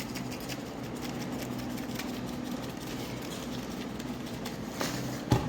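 Salt being shaken over freshly fried potatoes: light scattered ticks over a steady low hum. A sharp knock comes near the end.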